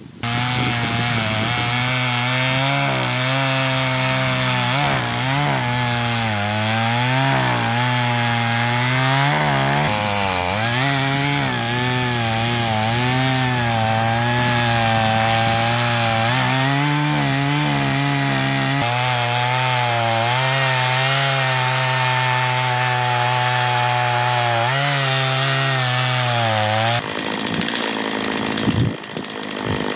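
Gasoline chainsaw running at high throttle while bucking firewood, its engine note dipping and recovering again and again as the chain loads up in the cut. The engine note breaks off abruptly near the end.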